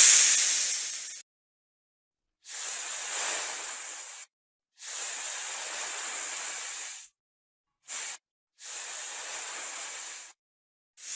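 Snake hissing in a string of separate hisses, each about one and a half to two seconds long, with total silence between them; one much shorter hiss comes just after the middle. A louder hiss is fading out at the start.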